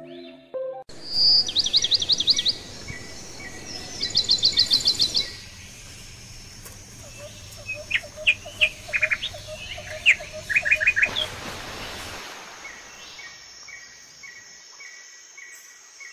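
Birds chirping: two fast high trills in the first five seconds, then a run of shorter chirps, over a low steady hiss.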